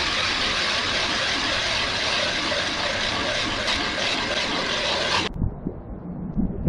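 Ice auger boring a hole through lake ice: a steady, even noise that cuts off abruptly about five seconds in, followed by wind buffeting the microphone.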